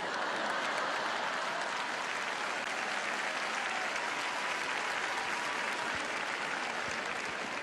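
A large arena audience applauding steadily, easing off slightly near the end.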